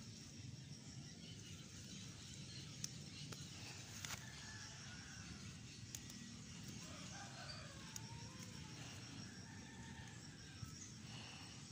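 A rooster crowing faintly in the second half, a few drawn-out calls that rise and fall, over quiet rural background noise. Soft rustles and clicks of chili plant leaves and stems being handled.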